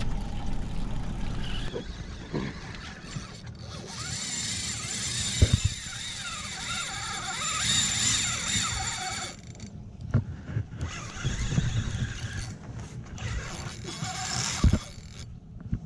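Penn Spinfisher V 5500 spinning reel's drag squealing as a hooked blackfin tuna pulls line off. The squeal is strongest for several seconds from about four seconds in and returns briefly near the end. A few sharp knocks from handling the rod come in between.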